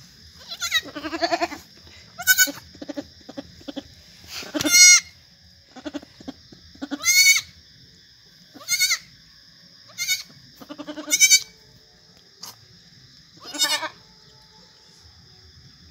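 Goat bleating repeatedly: about eight wavering calls a second or two apart, some deeper and some higher in pitch.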